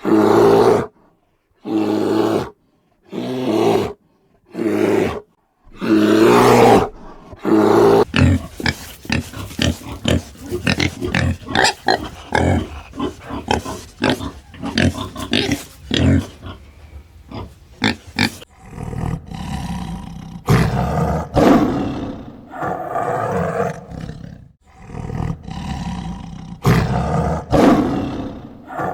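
A large animal's roaring calls: about six separate calls of roughly a second each with short silences between, then a fast run of short calls from about eight seconds in, and longer, fuller calls over the last ten seconds.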